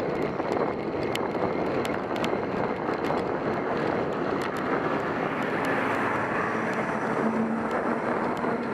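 Steady wind and road noise from a bicycle riding at about 15 mph, with a box moving truck's engine and tyres growing louder from about five seconds in as it overtakes close alongside near the end.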